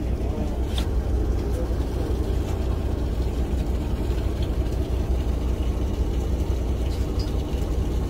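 Fishing boat's engine running with a steady low drone.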